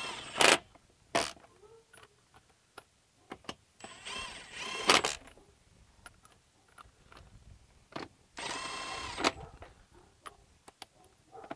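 Milwaukee M12 stubby 1/2-inch impact wrench on its lowest speed setting, spinning lug nuts onto a car wheel in a few short runs of about a second each. Small clicks of nuts and socket being handled come between the runs.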